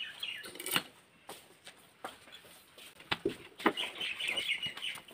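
Scattered knocks and clicks, with a bird chirping rapidly for about a second and a half near the end.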